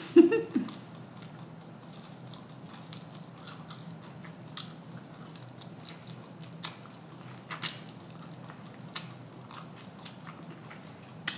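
A person chewing food close to the microphone, with scattered wet mouth clicks about once a second. A short loud voice sound comes right at the start.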